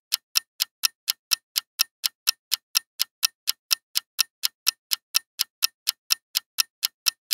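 Countdown-timer ticking sound effect: a clock-like tick repeating evenly at about four ticks a second as the quiz answer timer runs.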